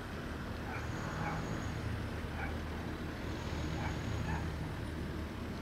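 Steady low hum of distant road traffic, with faint short calls from the ducks on the water several times.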